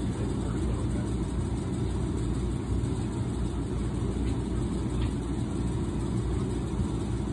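Oil-fired furnace running: the burner and blower make a steady low rumble and hum that does not change.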